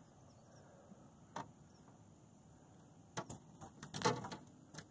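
Knocks and clicks of gear being handled in a small boat: a single click about a second and a half in, then a run of sharp knocks and rattles from about three seconds in, loudest around four seconds.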